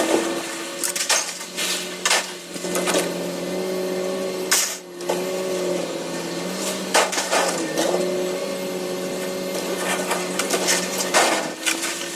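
A machine running with a steady hum whose pitch dips and recovers about every four seconds, under a string of sharp clanks and knocks.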